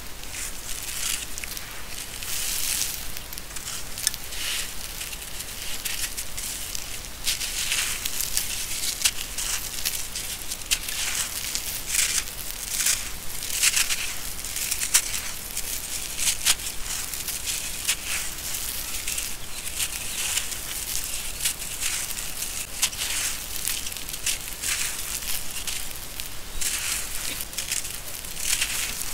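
Dry sand-cement lumps crushed and crumbling in bare hands, grit and powder pouring onto a gritty floor: an irregular, unbroken run of crisp crunches, crackles and sandy trickling.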